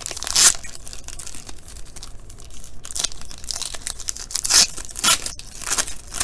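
Foil trading card pack (Panini Court Kings basketball) being ripped open by hand, crinkling throughout with several sharp tears, the loudest about half a second in and three more near the end.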